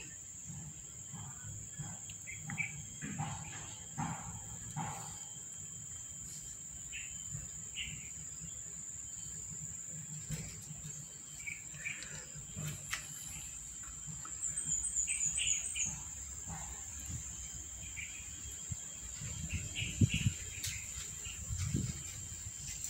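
Insects drone in one steady high pitch throughout. Over it come scattered short chirps, a quick run of them about two-thirds of the way in, and a couple of soft knocks near the end.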